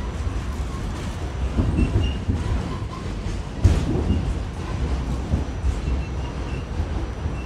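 R46 subway train running along the track, heard from on board: a steady low rumble with one sharp clunk a little past halfway.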